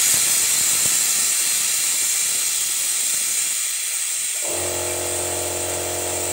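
Steady hiss of compressed air driving the cleaning liquid out of a pressurised engine-flush canister. About four and a half seconds in, a steady motor hum starts up abruptly beneath it.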